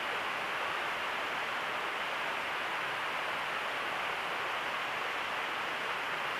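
Steady, even hiss of background noise with no other sound, no clicks or changes in level.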